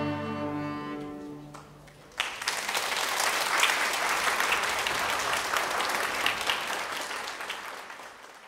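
A cello ensemble's final held chord rings and dies away. About two seconds in, the audience breaks into applause, which then fades out near the end.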